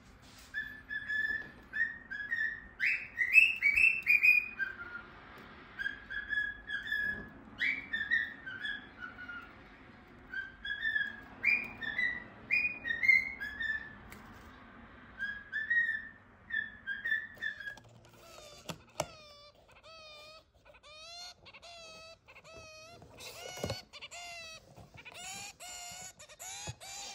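Small pet birds calling. For about eighteen seconds there is a run of short whistled notes, some of them rising. Then come rapid, repeated nasal calls typical of a zebra finch, which grow denser near the end.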